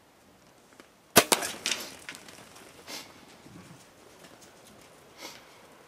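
A bow shot at a wild hog: a sharp, loud crack about a second in with a second crack right after, as the bow fires and the arrow strikes. A quick scatter of smaller cracks and knocks follows as the hogs bolt off.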